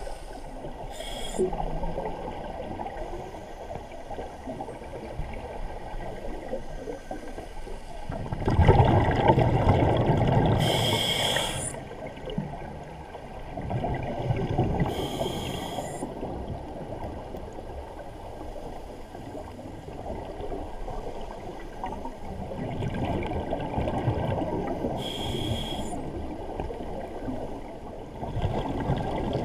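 Scuba diver breathing through a regulator underwater: slow breaths, each exhalation a few seconds of bubbling, about four in all, over a steady low underwater rumble.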